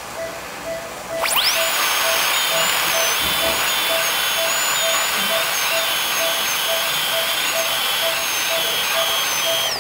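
High-speed dental air-turbine handpiece spinning up with a sharp rising whine about a second in, then running at a steady high whine with slight wobbles as it cuts a primary tooth for a stainless steel crown preparation, winding down right at the end. A short beep repeats about twice a second underneath.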